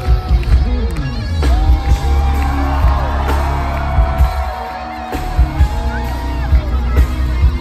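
Live pop concert music over a large PA, recorded from within the audience: heavy bass with sung vocal lines gliding above it.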